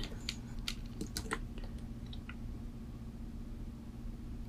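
Faint clicks and handling noise as multimeter test probes are picked up and set against the stripped wires of a brake pad wear sensor. There are several small clicks in the first couple of seconds, then only a low steady hum.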